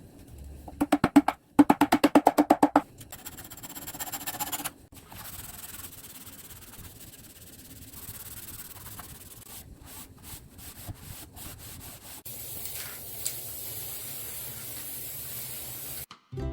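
Wood being worked by hand: a quick run of even back-and-forth rubbing strokes, like sanding, about a second in and again around four seconds, then steadier rubbing noise.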